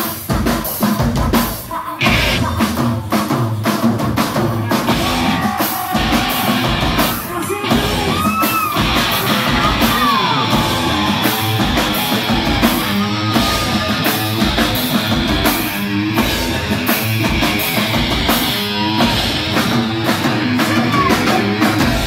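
Live rock band playing loud: electric guitar over a steady, hard-hitting drum beat.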